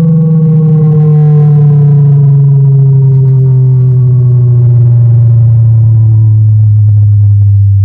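Kali Audio LP6 studio monitor's 6.5-inch woofer playing a loud bass tone that falls slowly and steadily in pitch, with overtones ringing above it.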